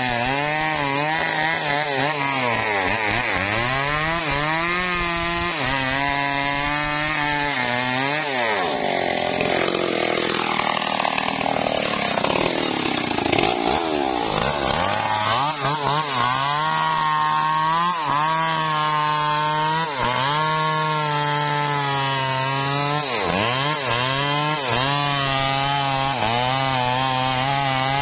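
Stihl two-stroke chainsaw running at full throttle while cutting into a standing teak trunk. Its engine pitch sags repeatedly as the chain bogs in the cut and then climbs back.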